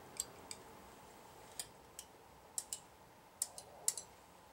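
Light, irregular clicks and taps of a metal spatula against a stainless steel makeup palette and lipstick palette as lipstick is scooped out, about a dozen faint ticks scattered across a few seconds.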